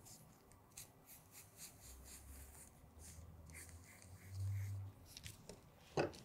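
Faint scratching of a felt-tip marker tracing a line on tracing paper, with light paper rustles. A low hum swells about two seconds in and is loudest around four and a half seconds, and there is a knock near the end.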